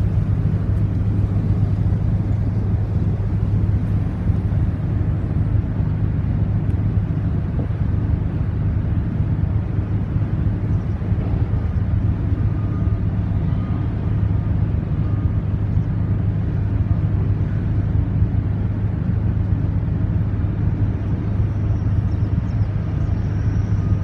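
Steady deep hum of a container ship's machinery, holding one even pitch and level.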